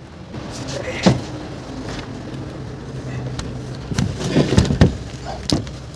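Knocks and clunks from a PVC window sash being handled while it is hung, one about a second in and several more between four and five seconds in, over a steady low hum.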